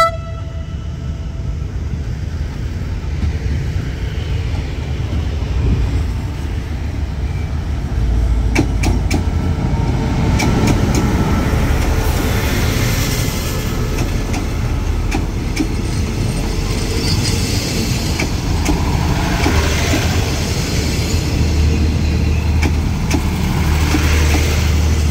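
QSY 5220 diesel-electric locomotive running past with a low, steady engine rumble that grows louder as it comes alongside about eight seconds in. Its passenger coaches then roll by, their wheels clicking over the rail joints. The tail end of a horn blast cuts off at the very start.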